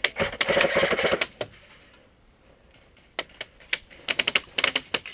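Airsoft rifle fire: a long rapid burst of clattering shots for about a second and a half, then after a pause a string of single shots and short bursts.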